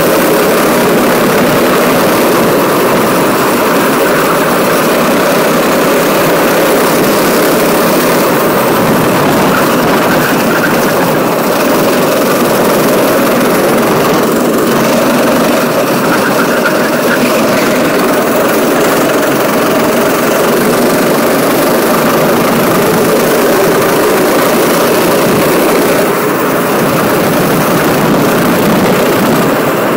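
Go-kart engine running loud and steady at racing speed, heard from on board the kart.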